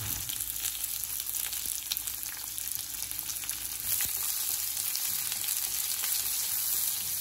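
Chopped onions sizzling in hot oil in a wok, a steady frying hiss. From about four seconds in a wooden spatula stirs them, adding scraping and clicking against the pan.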